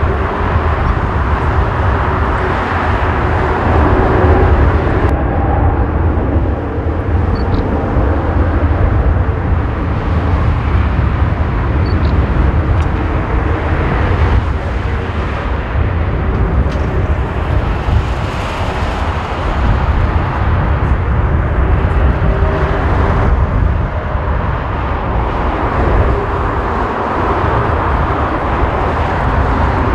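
Airbus A350-1000's two Rolls-Royce Trent XWB-97 turbofans at take-off thrust: a steady, loud jet roar with a deep rumble as the airliner accelerates down the runway toward rotation.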